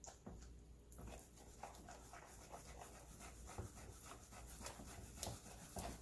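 Wooden spoon stirring a thick, partly cooked rice-flour and tapioca batter in a plastic bowl: faint, irregular wet squelching and scraping as the lumps are beaten out to make it smooth.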